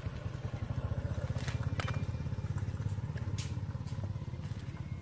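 A steady low rumble like an idling engine, with a few light rustles and clicks of a plastic bag being handled.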